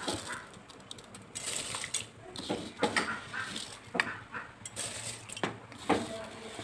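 Scattered clinks and knocks of metal pots and cooking utensils, sharpest and most frequent from about two and a half seconds in, over a faint hiss.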